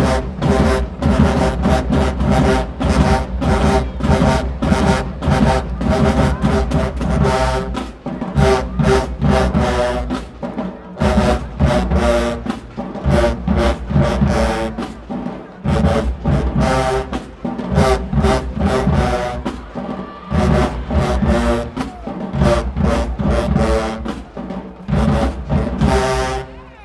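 Marching band playing, with brass chords over a driving drumline beat and a few short breaks in the rhythm.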